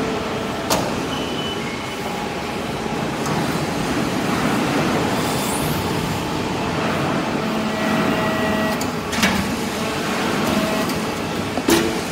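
Vertical hydraulic briquetting press running: a steady hum and hiss from its motor-driven hydraulic power pack, broken by three sharp metallic knocks, one about a second in and two in the last few seconds.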